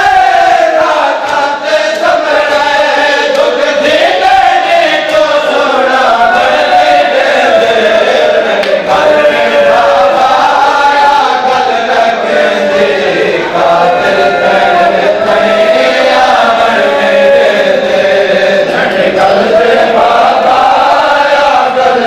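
Men's voices chanting a noha, a Shia mourning lament, loudly and without a break, the melody rising and falling.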